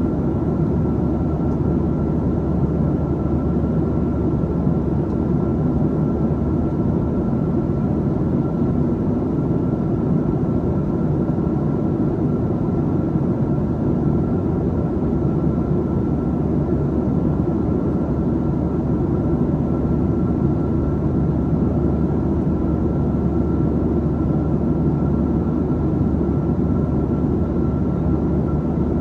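Cabin noise inside a Boeing 737-700 descending on approach: the steady rush of airflow and its CFM56-7B turbofan engines, with a thin constant tone sounding above it.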